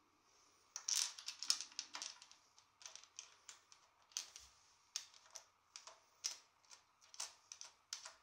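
Irregular light clicks and taps, a few a second, from parts and tools being handled at the top of a bicycle's head tube during a headset install. The clicks are louder for the first second or so.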